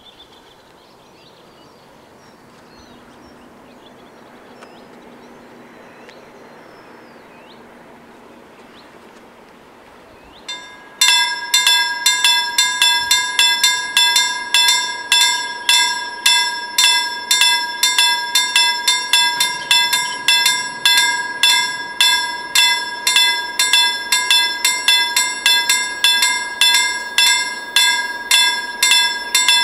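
Two level-crossing warning bells start ringing about eleven seconds in, fast evenly repeated strokes that keep going, the signal that a train is approaching. Before that only faint birdsong is heard.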